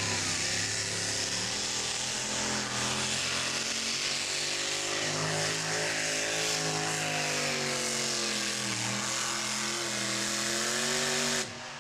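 Two-wheel-drive pulling truck's engine running hard under full load as it drags the weight-transfer sled, its pitch wavering up and down. It stops abruptly near the end.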